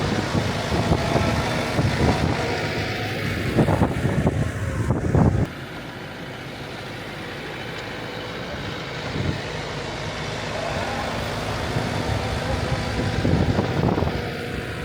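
TYM 574 compact tractor's diesel engine running while it pushes snow with a front plow. About five seconds in the sound drops suddenly to a quieter, steady run.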